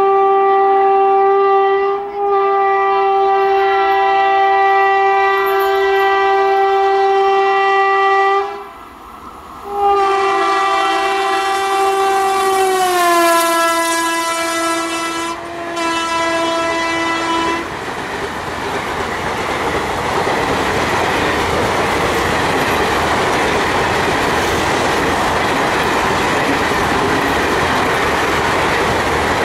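Passing train's locomotive horn sounding two long blasts, the second dropping in pitch partway through as the locomotive goes by. Then the coaches run past with steady rolling noise and the clickety-clack of wheels over rail joints.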